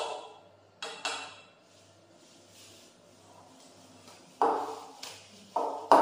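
Sharp clinks of chopsticks against a porcelain rice bowl as food is packed into it, each ringing briefly: a few near the start, then a quiet stretch, then three close together in the last second and a half.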